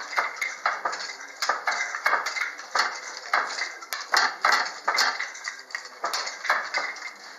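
West African narrow strip handloom being worked: a quick, irregular run of sharp clacks, about two a second, as the shuttle passes and the beater is pulled against the cloth.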